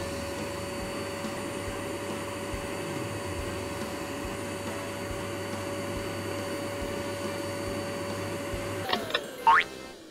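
Handheld vacuum cleaner sound effect: the motor runs with a steady whine over rushing air, then spins down about nine seconds in, followed by a quick rising whistle.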